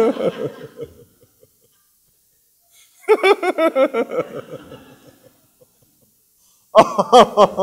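A man laughing: a burst of rapid ha-ha pulses about three seconds in that trails off, then a fresh burst of laughter near the end.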